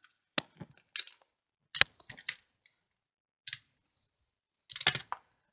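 Light clicks and taps of card, paper and small tools being handled on a craft desk. They come one at a time with quiet between, the sharpest a single tap about two seconds in, and a short flurry of clicks near the end.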